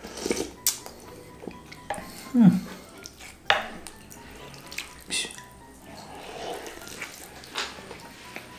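Close-up eating sounds of noodle soup: sips and slurps of broth and noodles, with wooden utensils knocking against a glass dish. A brief, loud, low sound falls in pitch about two and a half seconds in.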